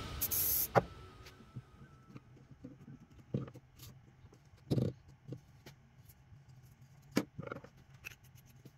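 A short spray hiss of CA glue activator about half a second in, then scattered light knocks and taps of plywood sheath pieces being handled and pressed together on the workbench.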